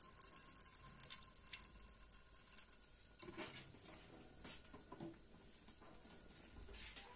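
Faint crackling and ticking as mustard oil is poured into a non-stick kadai scattered with spice powder. The crackles come thick for about the first two seconds while the oil is pouring, then only now and then once it stops.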